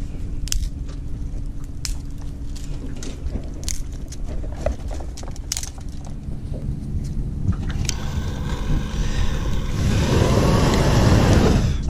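Dry twigs and brittle roots snapping and cracking as they are broken off by hand, a run of sharp cracks over a low steady rumble. From about eight seconds in, a loud rushing noise builds and stops abruptly just before the end.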